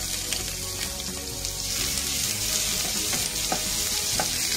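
Sliced onions sizzling in hot oil with mustard seeds and urad dal in a non-stick kadai. A wooden spatula stirs them, with a few light scrapes and taps against the pan.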